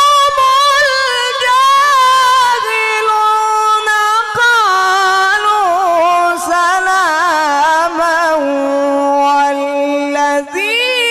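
A qari's voice in melodic Qur'an recitation, drawing one long ornamented phrase with quick wavering turns that sinks step by step from a high pitch to a low held note. A new phrase starts near the end.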